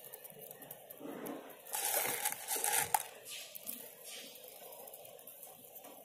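Bird feed being scattered onto a concrete rooftop: a burst of rustling and crackling about two seconds in, with a few sharp ticks as pellets land.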